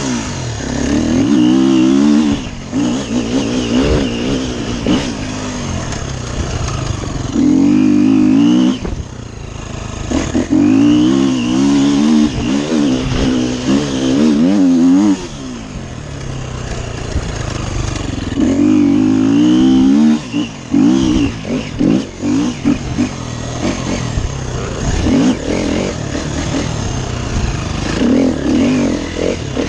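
Dirt bike engine under hard riding, its pitch climbing and falling as the throttle is opened and rolled off through the gears: several long pulls, then quicker short blips near the end.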